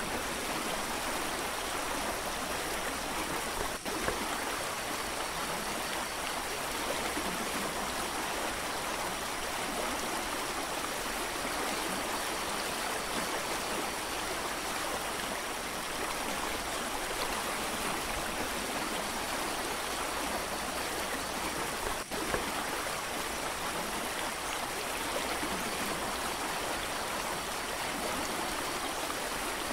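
Mountain creek water rushing over rocks in a steady, even rush, with two brief clicks, about four seconds in and again about two-thirds of the way through.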